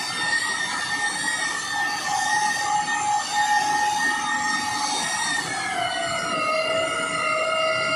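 Electric car polisher with a foam pad running on painted bodywork, a steady motor whine. About six seconds in, the pitch drops slightly and then holds.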